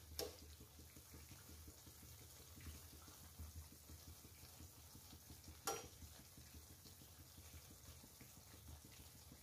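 Faint, steady sizzling of balushahi deep-frying in oil in an iron kadhai, with one light tap about halfway through.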